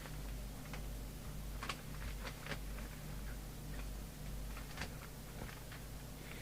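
A few faint, irregular clicks and taps from things being handled on a workbench, over a low steady hum.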